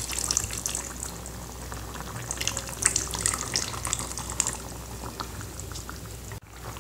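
Thin stream of coconut milk pouring into a pan of simmering mutton curry, over light bubbling and crackling from the pot. The sound drops out for a moment near the end.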